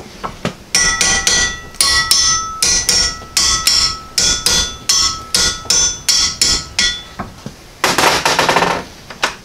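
Hammer blows on a cast-iron exhaust manifold clamped in a bench vise, about three strikes a second for some six seconds, each ringing metallically, to knock loose a seized, heated manifold stud. A short scraping noise follows near the end.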